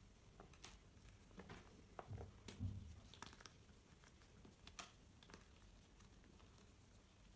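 Hands crushing and crumbling lumps of reformed pink gym chalk: faint, scattered crunches and small pieces pattering down, with a duller thump about two and a half seconds in.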